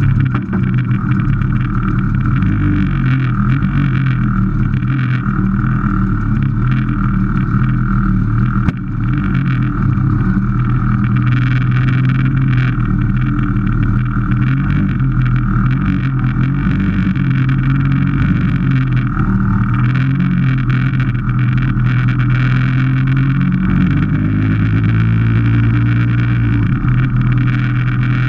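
Vintage Vespa scooter's two-stroke engine running steadily up close, with a brief drop about nine seconds in; its pitch rises near the end as the scooter moves off down the road.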